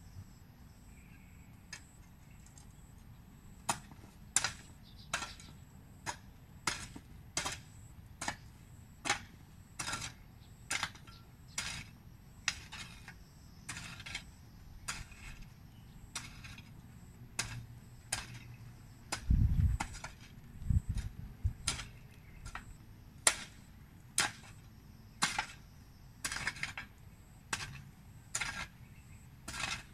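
A hoe blade chopping into and scraping garden soil in steady strokes, about one and a half a second, as the ground around young plants is loosened and weeded. A heavy low thump sounds a little past the middle, with a smaller one shortly after.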